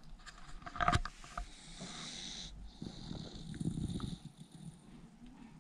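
A dog snoring in its sleep, with slow, rasping breaths. About a second in, a sharp knock comes from the camera being handled.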